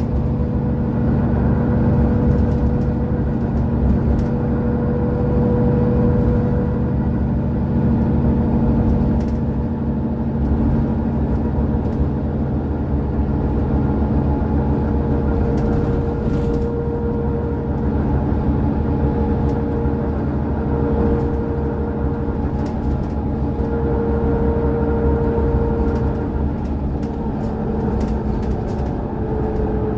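Mercedes-Benz O530 Citaro Facelift city bus heard from inside the passenger cabin while under way: the diesel engine runs steadily with a humming tone and low rumble, its pitch holding fairly even with small rises and falls.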